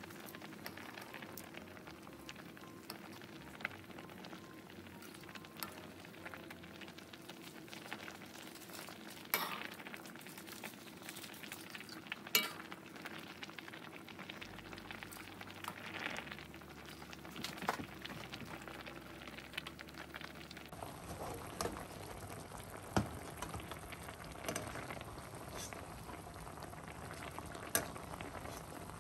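Soy-and-sake braising liquid bubbling hard around sea bream head and bones in a pan, a steady crackling sizzle of popping bubbles. A few sharper clinks come from a metal ladle skimming off fat and scum.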